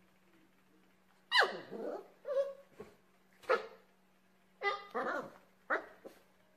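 Puppy barking at its own reflection in a mirror: about six short, high yips, the first sliding down in pitch.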